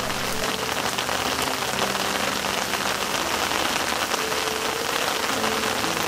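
Steady rain falling on rocks and leaves, a dense even hiss of drops, with soft sustained music notes faintly underneath.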